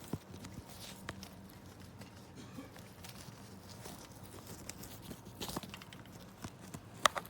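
Faint handling of an aluminum makeup train case: scattered light knocks and clicks as its parts are fitted together, with sharper clicks about five and a half seconds in and again near the end.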